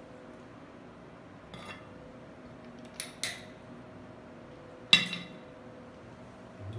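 A few sharp metallic clinks, the loudest about five seconds in, over a steady low hum.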